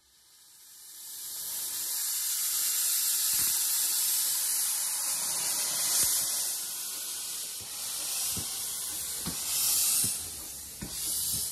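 Miniature steam locomotive 'Spitfire' moving off with its cylinder drain cocks open: a loud hiss of escaping steam that builds over the first second or two. From about halfway it swells in pulses with the piston strokes, with a few short low knocks.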